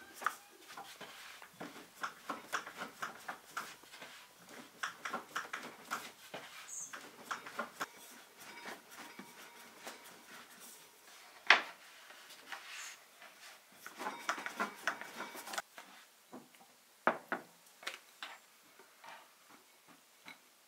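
Kitchen utensils and dishes being handled: many light, irregular clicks and taps, with one sharper knock a little past the middle.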